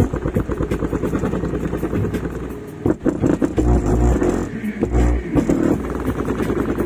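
Lightning Lab 2XL subwoofer, free air on a 1000 W amplifier at a 2+2 ohm load, playing bass-heavy music loud. Deep bass notes shift pitch every second or so, under a dense buzzing rattle.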